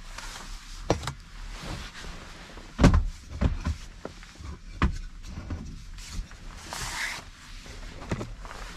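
Rain falling on the roof of a parked Honda Step Wagon, heard from inside the cabin: a soft hiss with irregular heavier drops knocking on the roof, the loudest thump about three seconds in.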